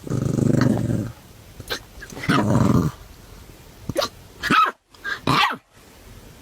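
A puppy with hiccups, making short growly barks and grunts among brief, sharp hiccup sounds, several in a few seconds.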